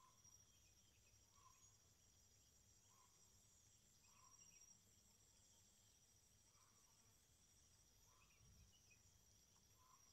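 Faint rural ambience: insects droning steadily at a high pitch, with a faint short call repeating roughly every second or two.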